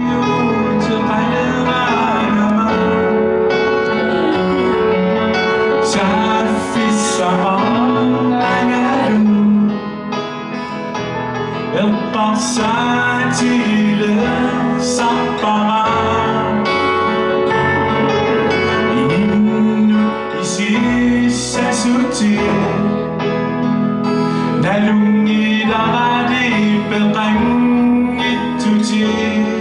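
A man singing a song, accompanying himself on an acoustic guitar.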